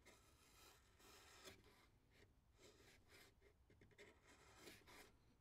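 Faint scraping of a bench chisel paring the end of a white oak dowel flush with a mahogany surface, in a series of short, irregular strokes.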